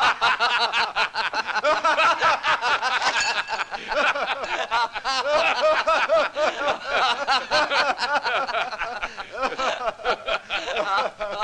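Several men laughing heartily together, overlapping voices in repeated bursts.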